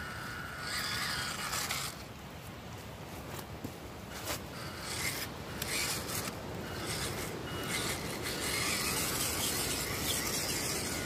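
WPL C14 1:16 RC crawler truck driving through mud and leaves: its small electric motor and gears whine in spells, with the tyres scraping and rubbing over the wet dirt.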